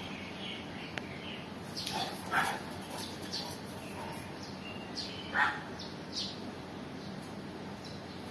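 A dog gives two short barks, about two and five seconds in, over light bird chirping.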